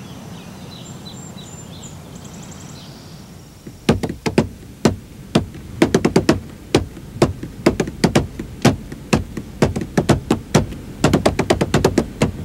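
Faint high chirps of birds over a quiet background, then, about four seconds in, a run of sharp percussive knocks and taps, irregular and two or three a second, some coming in quick clusters.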